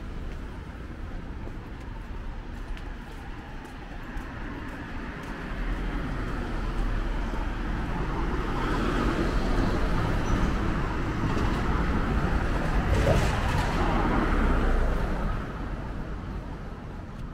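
A motor vehicle passes on the street, its noise building from about five seconds in, staying up for several seconds and dropping away near the end, over general street noise.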